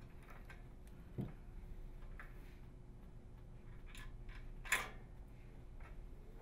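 Faint small clicks of needle-nose pliers unhooking a microwave door latch spring from the plastic inner door panel: a soft knock about a second in and a sharper click near five seconds.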